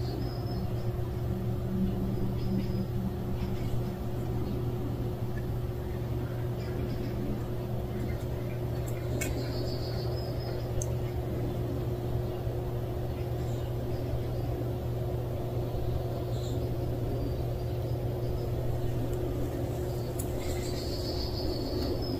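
Steady low outdoor rumble with a constant low hum underneath, and a few brief, faint high chirps from small birds now and then.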